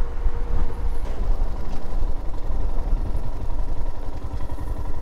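Motorcycle engine running steadily on the move, a dense low pulsing throughout.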